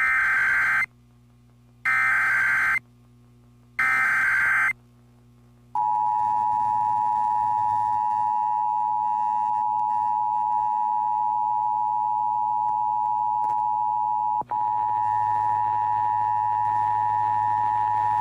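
Emergency Alert System transmission: three short bursts of warbling SAME digital header data, about two seconds apart, encoding a Required Monthly Test. These are followed by the steady two-tone EAS attention signal, which cuts out for an instant partway through.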